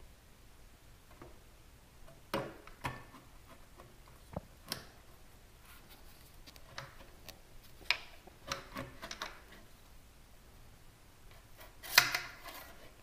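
Scattered clicks, taps and light knocks of motorcycle exhaust parts being handled and fitted, metal and carbon-fibre muffler pieces touching the bike, with the loudest knock near the end.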